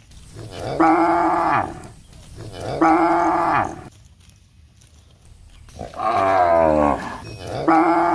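Cows mooing, calling for food: four loud calls of about a second each, spaced a second or two apart, the third sliding down in pitch.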